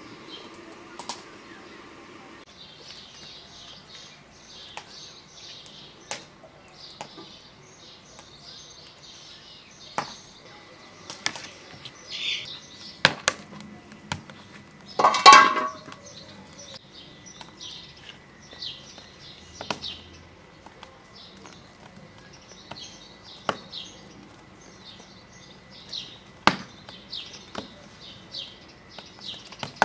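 Small birds chirping over a rural yard, with a few sharp knocks. About halfway through comes the loudest sound, a short metallic clatter as the aluminium lid is taken off a large aluminium cooking pot.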